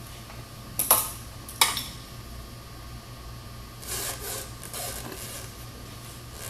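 Two sharp metallic clicks close together, then a few seconds of scraping and rattling as the puncturing object, such as a nail, is worked out of the tire with a hand tool. A steady low hum runs underneath.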